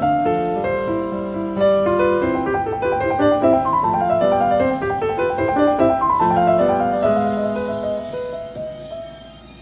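Piano music played through a television speaker, with two runs of notes cascading downward; it grows quieter near the end.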